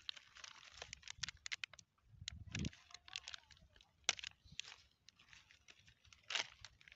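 Plastic bags and chemical packets crinkling and rustling as they are handled, with scattered sharp clicks; the sharpest click comes about four seconds in.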